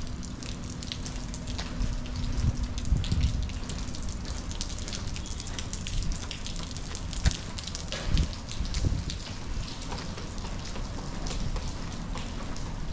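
Steady rain, with many small drops ticking sharply over a hiss, over a low uneven rumble. A faint steady hum dies away about four seconds in.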